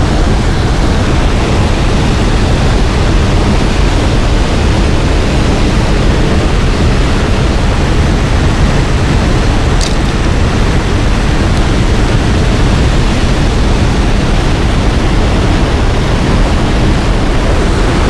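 Steady, loud rush of fast-flowing water from the river and falls, with a brief click about ten seconds in.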